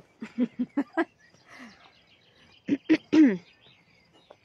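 A person's voice in a few short, unclear snatches, one louder about three seconds in, with faint bird chirps in the background.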